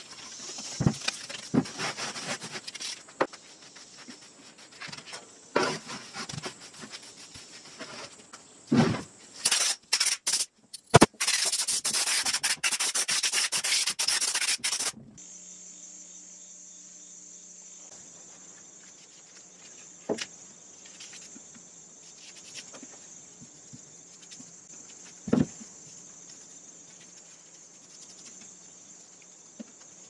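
Gloved hands rummaging and sifting through a pile of sawdust to dig out a metal part, a scratchy rustling with a few knocks. About eleven seconds in, a loud steady rushing noise runs for about four seconds, then cuts off into quieter room tone with a couple of light clicks.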